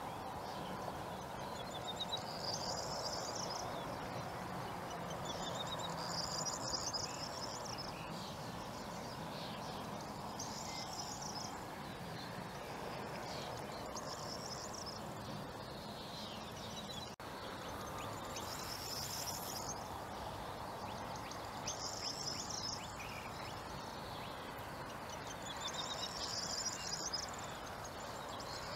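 A songbird repeating a short, high song phrase about every four seconds, over a steady background hiss of open countryside.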